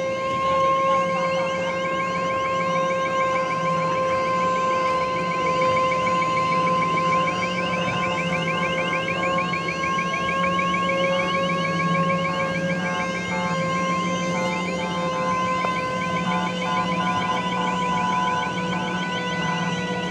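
Ships' horns and a siren sounding continuously in salute as water cannons spray over a wooden dhow: one steady held horn note with a fast-warbling siren over it, and a low steady drone underneath.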